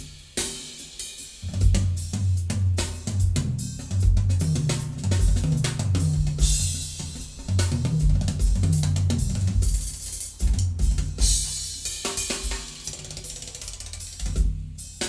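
Recorded percussion music played through a vintage Sansui QRX-7500 stereo receiver: a drum kit with kick, snare, hi-hats and cymbal crashes over a stepping bass line.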